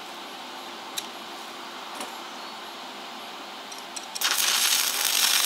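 Stick arc welding: two light metallic clicks, then about four seconds in the arc strikes and runs with a loud, steady crackling hiss as a bead is laid on steel.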